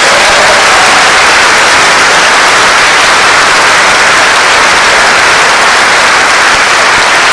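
Large audience applauding, a loud, steady wash of clapping at the end of a talk.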